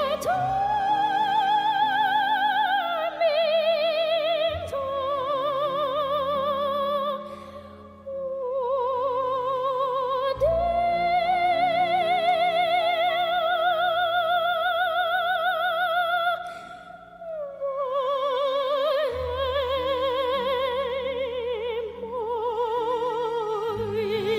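Opera music: a singer holding long notes with wide vibrato over a soft sustained accompaniment, the voice pausing briefly twice.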